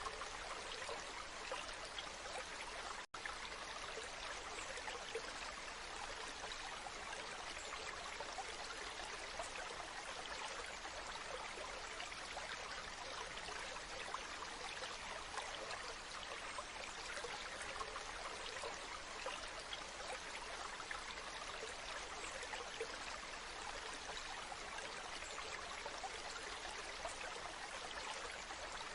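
Waterfall: falling water rushing and splashing steadily, its sound sitting mostly in the higher range, with a split-second dropout about three seconds in.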